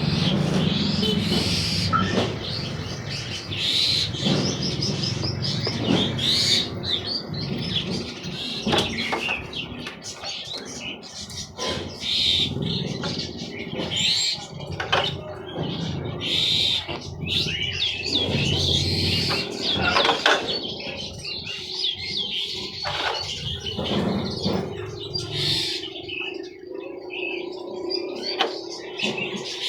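Many songbirds chirping and whistling in quick, overlapping calls, over a low background rumble that drops away near the end.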